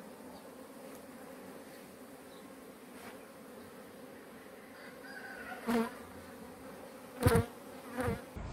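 Honeybees buzzing around their hives, a steady hum. Near the end three brief, louder buzzes stand out, as of bees flying close past.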